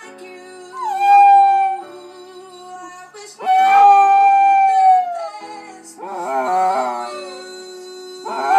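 A dog howling along to a piano song: two long held howls, the second the longest and falling slightly as it ends, then a shorter wavering howl and another howl starting near the end.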